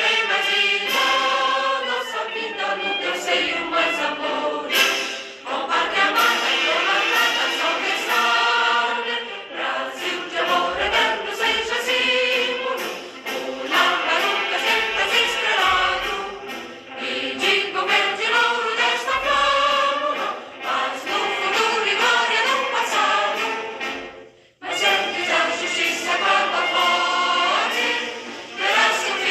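Choral music: a choir singing sustained notes with vibrato, breaking off for a moment near the end before resuming.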